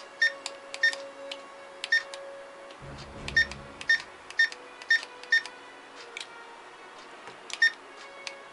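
Short electronic beeps from a Star Trek phaser prop's sound-and-light circuit board, about nine of them at uneven intervals, one for each press of its buttons as the power-setting LEDs step along.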